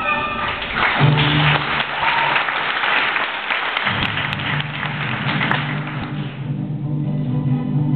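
Audience applauding over orchestral ballet music; the applause fades away about six seconds in while the music carries on.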